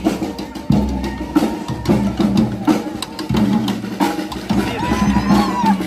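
Marching drum band playing snare drums and a bass drum in a steady marching beat.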